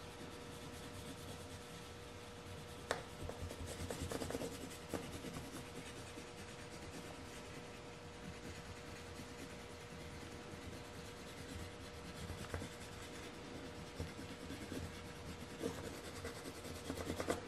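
Faint scratching of a coloured pencil (pencil crayon) shading back and forth on paper, with a few light taps.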